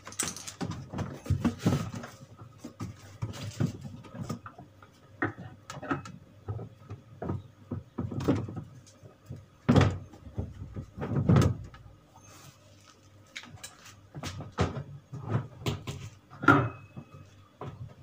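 Irregular plastic knocks and thumps as a twin-tub washing machine's spin tub and its dryer motor are lifted and pushed back down to seat the motor. The loudest knocks come about ten and eleven seconds in, with another about sixteen seconds in.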